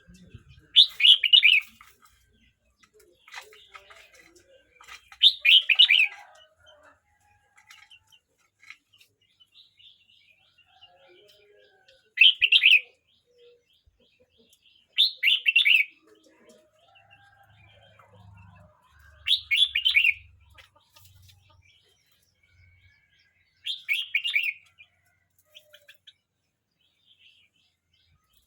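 A young red-whiskered bulbul, about thirteen months old, singing. It gives six short, loud song phrases a few seconds apart, with faint chirps between them.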